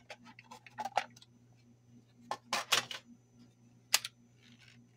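Plastic case of an OMGS S-611 mini transistor reel-to-reel tape recorder being handled, turned over and opened: a run of small clicks and knocks, loudest in a cluster about two and a half seconds in, with one sharp click near four seconds.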